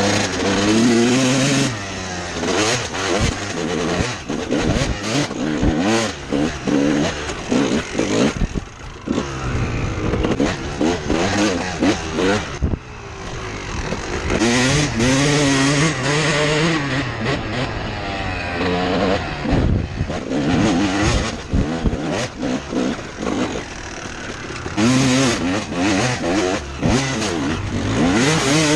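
2004 Honda CR250R two-stroke single-cylinder dirt bike engine being ridden hard, revving up and falling back again and again as the throttle opens and closes, with short knocks mixed in.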